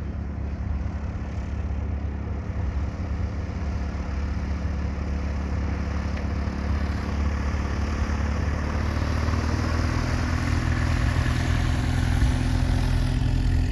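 An engine running steadily, with a rushing noise that swells louder over the last few seconds as its pitch rises slightly.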